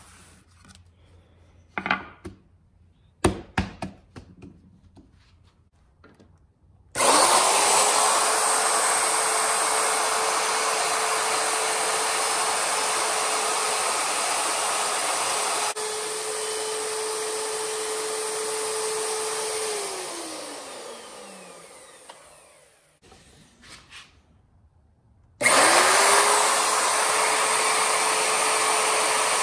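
A few knocks of handling, then a Ryobi router starts about seven seconds in and runs with a steady whine as it cuts a round hole in plywood. It winds down with a falling pitch and stops, and a few seconds later starts up again and keeps running.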